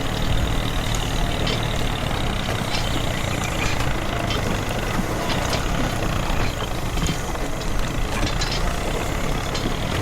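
Steady truck-like engine running, with scattered light clicks and rattles throughout.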